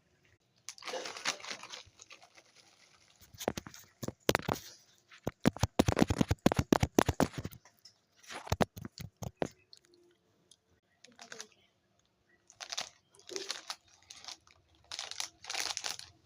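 Close-miked crunching and chewing of crisp food: several runs of quick, sharp crunches separated by short pauses, the densest run about halfway through, with softer bursts near the end.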